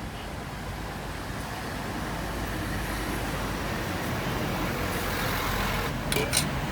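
Street traffic going by, a steady motor-vehicle hum that slowly grows louder, with two sharp clicks about six seconds in.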